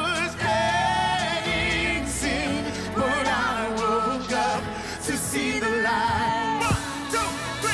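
Contemporary worship song performed live: a male lead singer sings with vibrato over a full band.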